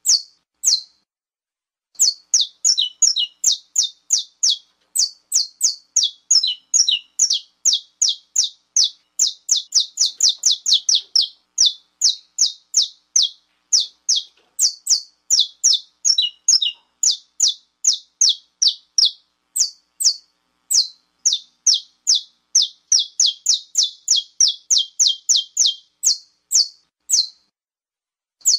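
Saffron finch giving its 'estalo' call: a long, fast run of short, sharp chirps, about four a second, each dropping quickly in pitch. The run stops for about a second near the start and pauses briefly twice later on.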